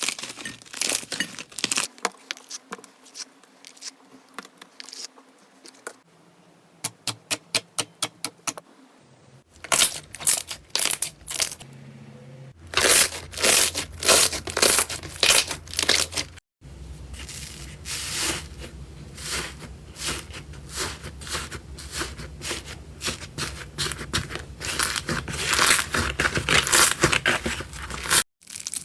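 Slime being squeezed, poked and stretched by hand, close up, making crackly, crinkling snaps and pops whose texture changes every few seconds. Around six seconds in comes a run of quick, evenly spaced pops, about four a second.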